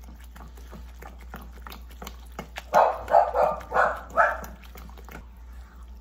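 A dog barks five times in quick succession about halfway through, over the faint tapping and scraping of a wooden spoon stirring thick dough in a stainless steel bowl.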